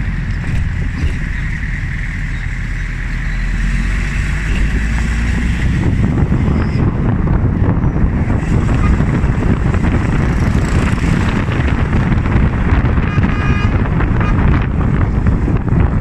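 Engine and road rumble of a moving vehicle, with wind buffeting the microphone. A brief steady tone, like a horn, sounds about three-quarters of the way through.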